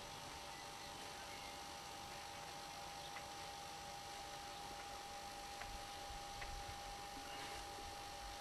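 A faint steady hum at one pitch over a background hiss, with a few faint ticks.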